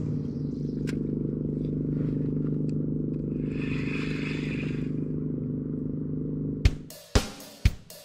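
Steady low hum of a motorboat engine running. About six and a half seconds in, a drum beat starts with about two hits a second.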